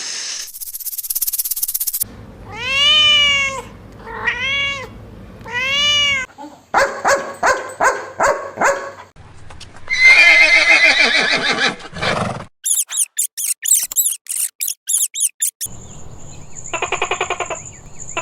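A string of different animal calls, one after another. Early on come three rising-and-falling cat meows, and a horse-like whinny follows in the middle.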